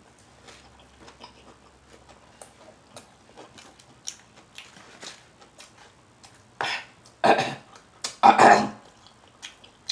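A person's mouth making faint smacking clicks, then three loud burps in quick succession about seven to nine seconds in.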